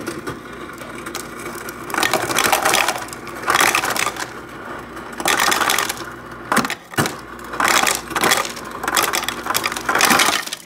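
Refrigerator door ice dispenser running in about six bursts, ice clattering and rattling down the chute into a plastic cup, with a few sharp knocks between bursts.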